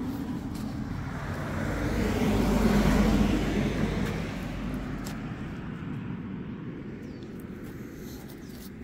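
A car driving past on the street, its noise swelling to a peak about three seconds in and then fading away.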